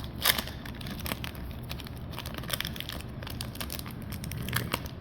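Foil Pokémon booster pack wrappers crinkling and rustling as packs and cards are handled, in quick small crackles, the loudest just after the start.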